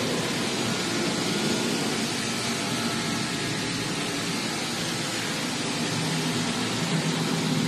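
A steady machine noise: an even hiss with a low hum under it.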